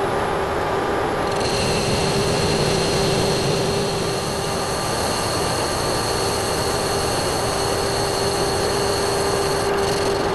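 Metal lathe, a 1972 Weiler Matador SV, turning the teeth off a soft iron gear ring: a steady cutting noise with a ringing tone throughout. The ringing fits the chatter the machinist expected from such a 'melodic' part.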